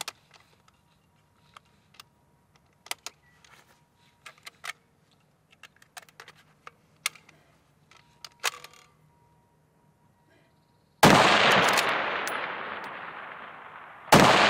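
A 6.5 Creedmoor Tikka-action bolt rifle fires two shots, about eleven seconds in and again about three seconds later, each followed by a long fading echo. Before the shots, faint scattered clicks and knocks of the rifle and gear being handled on the barricade.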